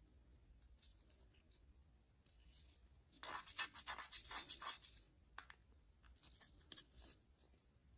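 Soft scratching and rustling of toy packaging being handled during an unboxing. It is quiet at first, then comes in a dense crackly patch about three seconds in, followed by a few scattered light clicks.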